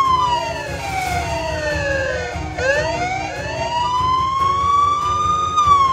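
Emergency-vehicle siren in a slow wail: the pitch falls steadily for about two and a half seconds, then climbs back up for about three.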